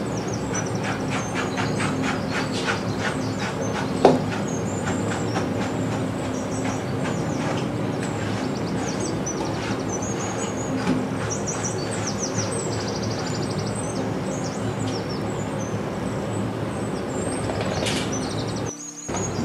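Grooming brush stroking through a dog's curly coat, quick even strokes in the first few seconds, over a steady background rush with birds chirping.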